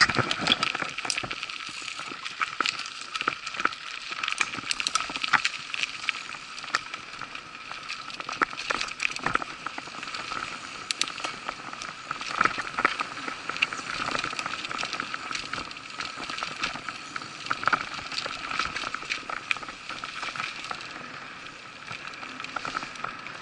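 Mountain bike ridden along a dirt forest trail, with tyre noise on the ground and constant irregular rattling and clicking from the bike as it runs over the bumps.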